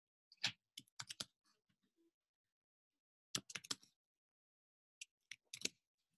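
Computer keyboard keys clicking as a word is typed, in three short bursts of keystrokes with pauses between them.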